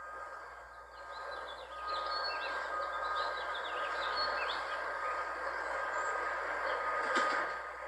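Electric pressure washer running with a steady whine and the hiss of its spray, dipping briefly about a second in before picking up again. Birds chirp over it.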